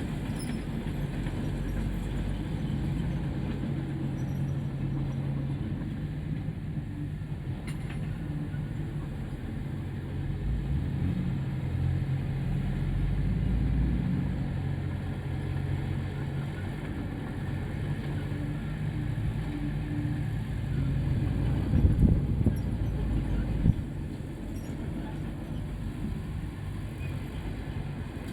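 Diesel engine of earthmoving machinery running steadily, swelling and easing under load, with a couple of loud knocks about three quarters of the way through.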